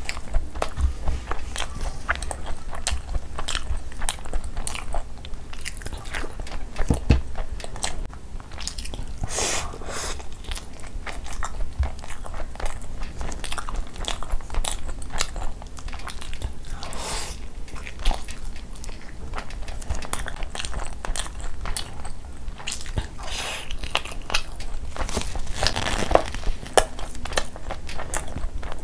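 Close-miked eating sounds of chicken ghee roast and khichdi eaten by hand: steady chewing and biting with many small clicks from the mouth. Several louder bites come about a third of the way in, past halfway, and near the end.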